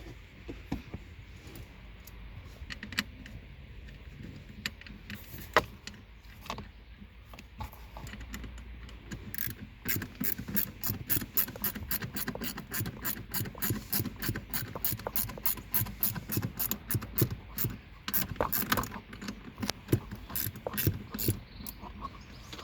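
Hand ratchet wrench tightening the bolt of a car seatbelt pretensioner: a few scattered clicks and knocks, then from about ten seconds in a fast run of ratchet clicks, several a second, with short pauses.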